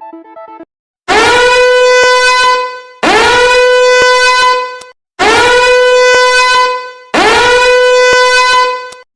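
Novelty notification tone: a loud horn blast that scoops quickly up into one held note, sounded four times about two seconds apart.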